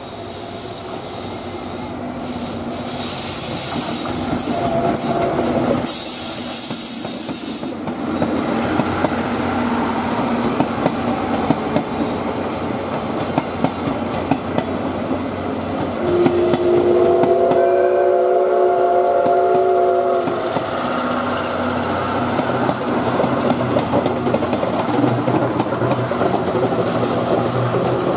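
A locomotive-hauled train of 12-series coaches rolling past, its wheels clicking over the rail joints, the noise growing louder. About two-thirds of the way through, the C61 20 steam locomotive's whistle sounds one long note for about four seconds.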